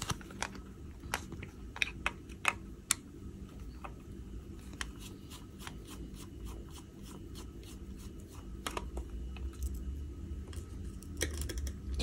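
Small screwdriver turning screws out of the metal body of a Blackmagic Pocket Cinema Camera: scattered light clicks and ticks, most of them in the first few seconds and again near the end.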